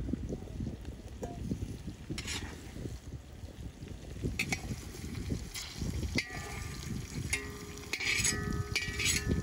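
A long metal skimmer scrapes and clinks against a large steel pan and an enamel bowl as fried diced potatoes and peppers are scooped out, with oil sizzling low underneath. A few sharp clinks ring briefly, the busiest run near the end.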